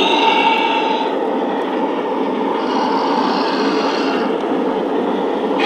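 Lionel FA-2/FB-2 O-gauge model diesel locomotives running: a steady diesel engine sound from the onboard sound system, over the running noise of the wheels on the track. A higher hiss comes in for about a second and a half midway.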